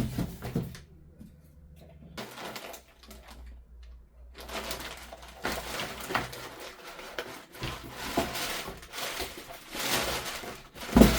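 Packaging being handled and opened: irregular rustling and crinkling that starts a few seconds in, with a few knocks and a louder thump near the end.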